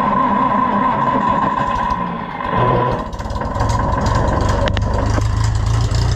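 Oliver 1250 (Fiat 415) tractor engine being cranked by its starter, a steady whine over fast pulsing, then catching about three seconds in and settling into a steady low idle.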